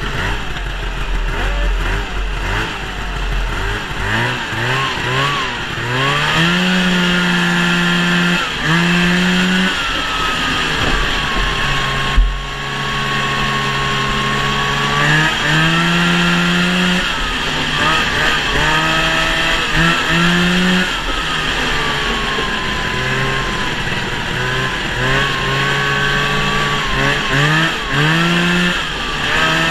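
1971 Ski-Doo TNT 640 snowmobile's two-stroke twin engine running under way, its pitch climbing, holding and dropping again and again as the throttle is worked, over a steady rush of wind and track noise. A single sharp knock comes about twelve seconds in.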